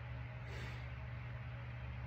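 Steady low hum with faint background hiss: room tone in a pause between sentences.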